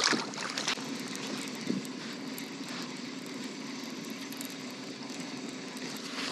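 A splash at the start as a released bass drops back into the water, then a steady low drone like a distant engine.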